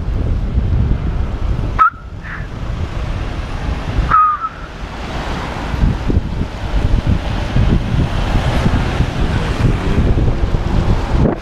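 Wind buffeting the microphone with road rumble from a moving bicycle. The noise cuts off sharply twice, about two seconds in and again about four seconds in, each time with a brief high squeak, then builds back up gradually.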